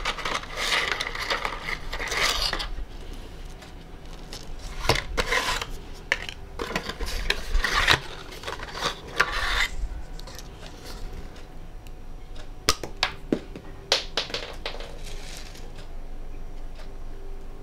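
Cardboard packaging of a reed diffuser rustling and scraping as it is opened and handled. In the second half come a few light, sharp clicks as the reed sticks are handled and set into the glass bottle.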